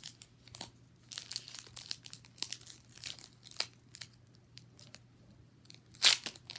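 Foil booster-pack wrapper being torn open and crinkled, in short irregular crackles, with a louder rustle about six seconds in.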